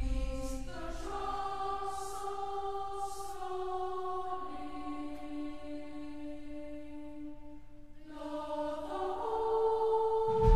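Background music: a wordless choir-like chorus holding long chords that change every second or two, dipping briefly about eight seconds in and swelling again near the end.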